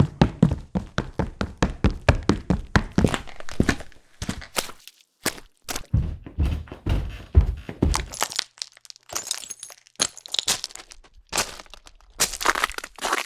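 Footstep sound effects on changing surfaces: quick runs of heavy, thudding steps at about four a second, then sparser, brighter, crunchier steps in the last few seconds.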